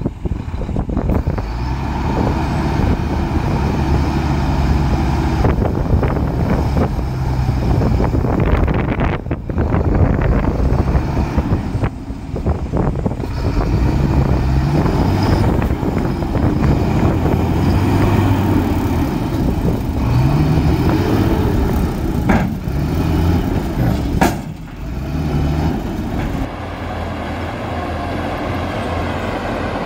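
Heavy diesel engine of an earthmoving machine working under load, its pitch rising and falling as the throttle changes. Two sharp knocks about two seconds apart come roughly three-quarters of the way through.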